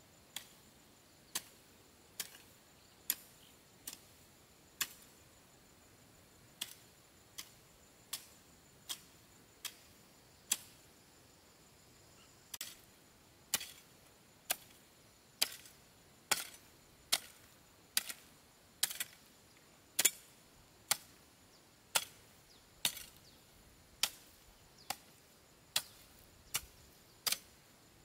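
Repeated chopping strokes of a hand tool, about one sharp strike a second, with a brief pause near the middle.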